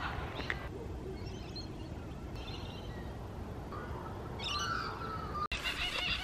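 Birds chirping in scattered short bursts over low, steady outdoor background noise, with a quick run of chirps near the end.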